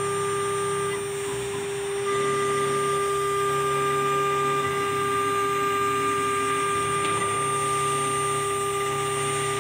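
AKM1325 CNC router's spindle whining at a steady pitch while the bit engraves circular grooves into a laminated board, with the rasp of cutting beneath. The sound eases off a little about a second in and picks back up about two seconds in.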